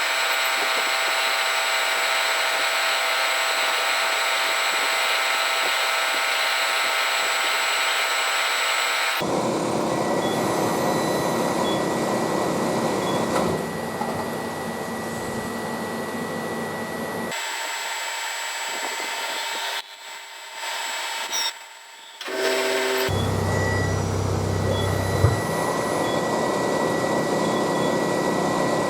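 Metal-working lathe running while machining a stainless steel bar: a steady mechanical noise with high, even whining tones. The sound changes abruptly several times, and drops briefly about two-thirds of the way through.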